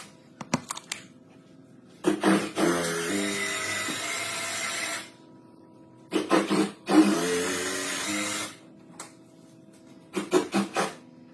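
A handheld power tool runs in two bursts of about three seconds and two and a half seconds, each beginning with a falling pitch as it loads up. There are short clusters of knocks from handling near the start and near the end.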